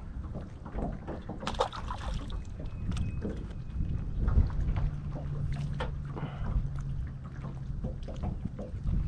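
Water lapping around a jon boat and wind rumble on the microphone, with a few clicks and splashes as a small fish is handled over the water. About halfway through, a low steady hum from the boat's electric trolling motor starts and runs for about three seconds.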